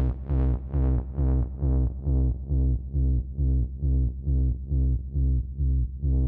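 Electronic dance music with a pulsing bass note repeating about twice a second, its brightness fading and becoming duller over the first couple of seconds.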